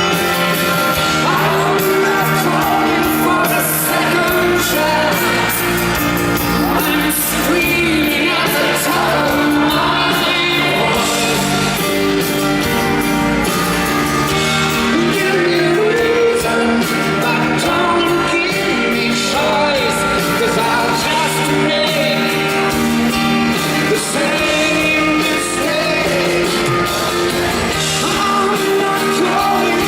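Live pop-rock ballad played by a band, with singing over it, reverberating in a large concert hall.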